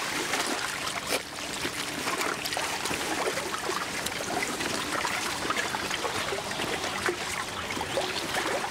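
Water trickling and dribbling out of a truck-tarpaulin fish carrying sling as it is carried, with many small crackles and clicks from the sling and its load.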